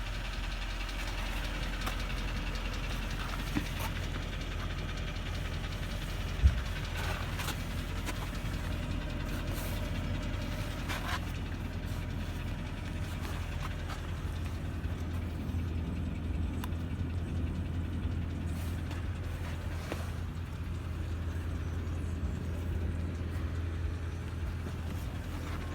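Mercedes-Benz W222 S-Class engine running steadily with a knock, which points to more wear than a claimed 110,000 km would suggest. A single sharp thump sounds about six and a half seconds in.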